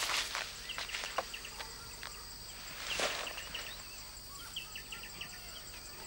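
Forest ambience: small birds chirp in short repeated calls over a steady high insect drone. There are brief rustling swishes at the start and about three seconds in.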